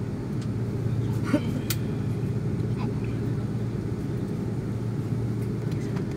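Steady low rumble of a jet airliner's engines and air conditioning heard from inside the passenger cabin while the plane taxis, with a sharp click about a second and a half in.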